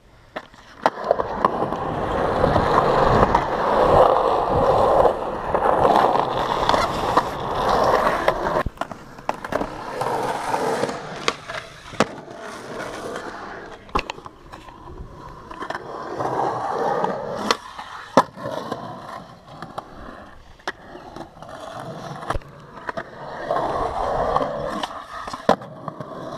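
Skateboard wheels rolling on a concrete bowl, the rumble swelling and fading as the board carves through the transitions, with many sharp clacks and knocks of the board along the way.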